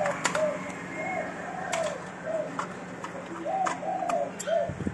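A dove cooing over and over in a series of short, arched notes, with scattered light clicks and taps from hands working on copier parts, over a low steady hum.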